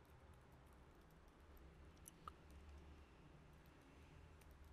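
Faint computer keyboard typing: scattered quiet key clicks over near silence.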